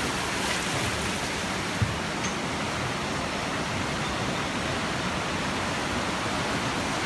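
Steady rush of fast-flowing river water, with a single brief knock about two seconds in.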